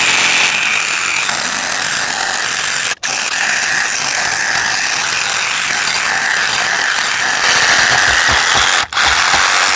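Reciprocating saw with a 15-inch Japanese-tooth pruning blade running and cutting through wood, a steady rasping noise. It breaks off very briefly twice, about three seconds in and again near the end.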